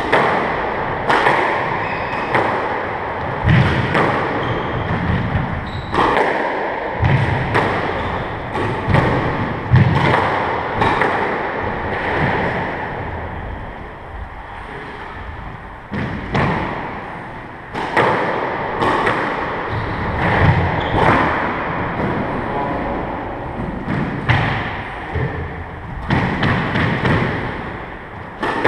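Squash ball struck by rackets and hitting the court walls in a rally, a sharp, echoing hit about once a second, with a lull of a few seconds midway before play resumes.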